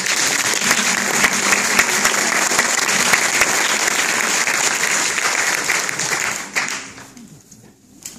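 Audience applauding: dense, steady clapping that dies away about seven seconds in.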